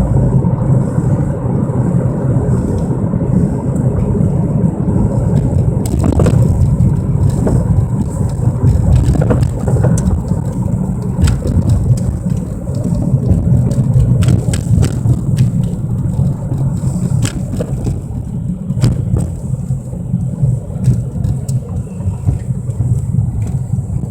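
1997 Mercury Mystique driving with a loud, steady low drone, the noise that comes on under acceleration and grows with road speed, which the owner suspects is a wheel bearing or the brake rotors. Scattered sharp clicks and knocks come through from about six seconds in.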